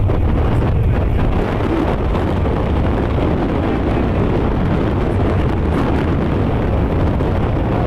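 Steady road noise while riding a motorbike: the motorcycle's engine running at an even speed under a constant low rush of wind on the microphone.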